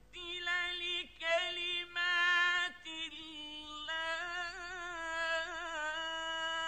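A solo male Quran reciter chanting in the melodic tajweed style, with ornate, wavering melismatic phrases. The last phrase is a long held line of nearly three seconds that falls away at its end.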